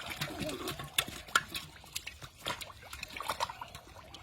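Shallow water splashing and dribbling in short, irregular bursts, from hands groping through it to catch fish.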